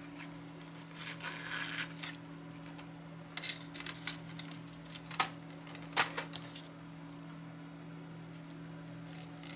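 A paper card and a ribbon being handled on a cutting mat: brief rustles and crinkles, with two sharp taps about five and six seconds in, over a steady low hum.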